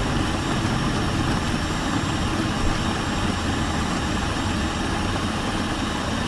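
Electric food processor running steadily, its blade grinding a pressed tofu and carrot mixture into a coarse, mince-like paste.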